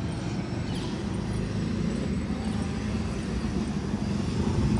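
A vehicle engine running at low speed, a steady low rumble that grows louder toward the end.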